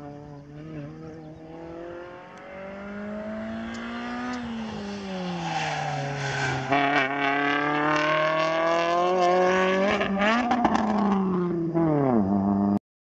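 A car engine driven hard around a circuit, its pitch climbing and dropping several times as it accelerates and lifts off, growing louder as it comes closer. The sound cuts off abruptly near the end.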